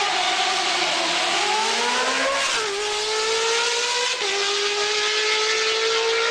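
Motorcycle engine accelerating under load. Its pitch climbs and then drops sharply twice, about two and a half and four seconds in, as it shifts up through the gears.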